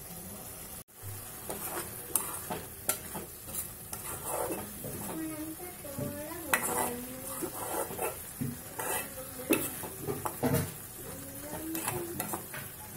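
A spoon stirring sweet corn tomato curry in a kadai, with repeated clicks and scrapes against the pan over the steady sizzle of the simmering curry.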